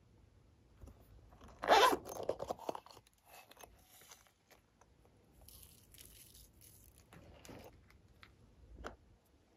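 A plastic duck-head container is handled and tipped upside down to shake red star glitter onto slime. There is a loud scraping rasp about two seconds in, then softer rustling, hissing and small ticks as the glitter falls.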